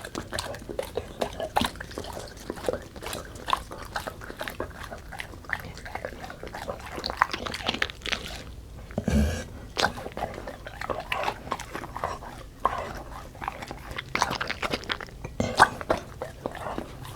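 Golden retriever eating, chewing and smacking wet food in rapid irregular clicks and crunches, with one brief low-pitched sound about nine seconds in.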